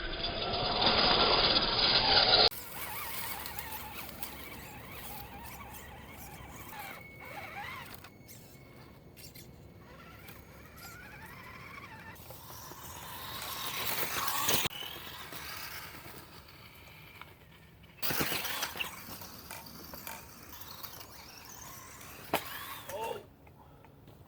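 Vaterra Twin Hammers RC truck's 27-turn brushed electric motor and drivetrain whining as it is driven, the pitch gliding up and down with the throttle. The whine comes in several short stretches that cut off suddenly, loudest in the first couple of seconds and again rising to a peak about two-thirds of the way through.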